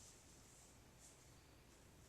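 Near silence: faint room tone with a couple of soft rustles.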